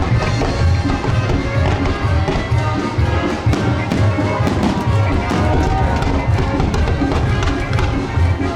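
Music with a pulsing bass beat, with fireworks banging and crackling over it.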